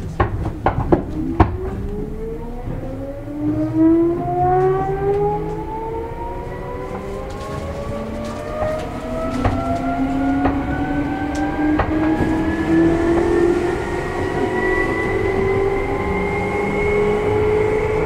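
Seibu New 2000 series field-chopper electric train pulling away from a station, heard from inside a motor car: the traction motor whine climbs steadily in pitch as the train gathers speed, with several rising tones at once. A few sharp clicks come in the first second and a half.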